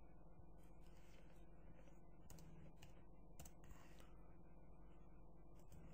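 Near silence: low steady room hum with a handful of faint computer mouse clicks.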